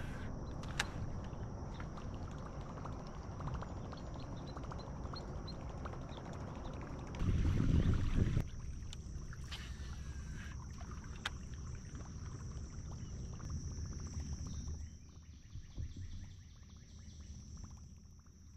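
Kayak moving through calm river water: a steady low rush of water and wind noise, with a louder rush for about a second around seven seconds in, then quieter near the end. A faint steady high-pitched whine runs underneath.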